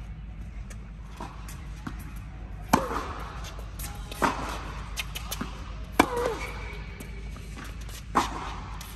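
Tennis ball struck by rackets back and forth in a rally: four sharp pops about one and a half to two seconds apart, each with a short echo off the indoor court's walls and roof, and fainter ball bounces between them.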